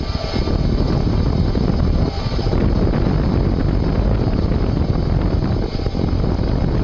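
Front hub motor of a ViVi Charge electric-assist bicycle running under way, a steady drone mixed with rolling noise and wind buffeting the microphone.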